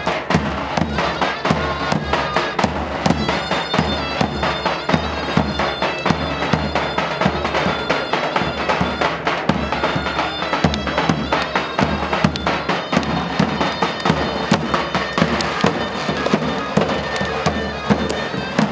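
Davul bass drums beating a fast, even rhythm under a continuous reed-pipe melody: the traditional drum-and-pipe music that accompanies oil wrestlers' peşrev warm-up ritual.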